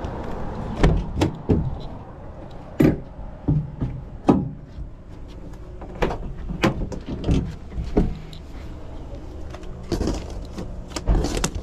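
A cargo van's doors and load being handled: a string of sharp clicks and knocks, and a rustling scrape near the end. A low steady hum runs underneath, from the van's engine left running.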